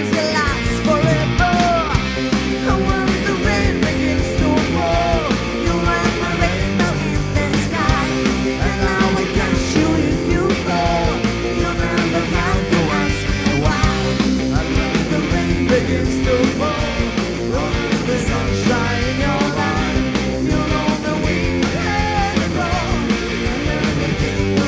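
Live rock band playing loud and without a break: electric guitar, bass guitar and drum kit, with a melody line that bends in pitch.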